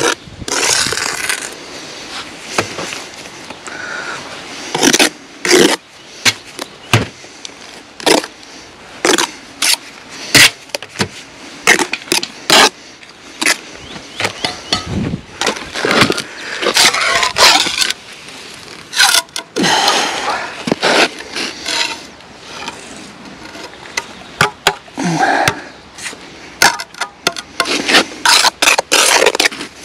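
Blocklaying trowel work: a steel trowel scraping mortar and knocking concrete blocks down into their bed, an irregular string of sharp taps and scrapes.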